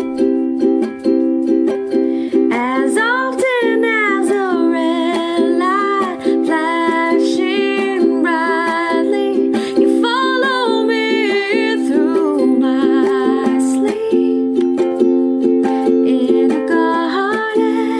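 Background music: steady sustained chords, with a wavering melody line that comes in about two and a half seconds in and carries on over them.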